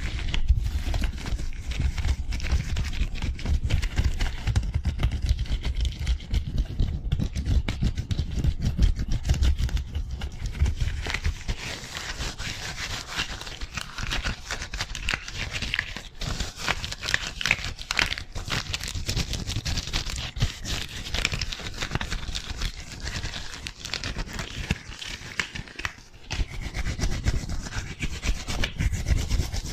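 Fast, rough rubbing and rustling of disposable gloves on hands moving right at a foam-covered microphone: the gloved hands rub together and slide along the forearm. A low rumble runs through the first third and returns near the end.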